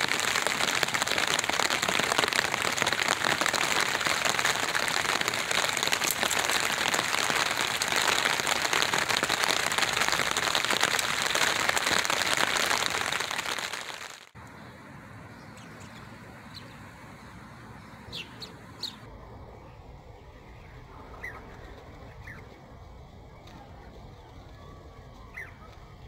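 Steady rain drumming on a tarp canopy overhead, a loud even hiss that stops abruptly about halfway through. A quieter outdoor background follows, with a few short, high bird chirps.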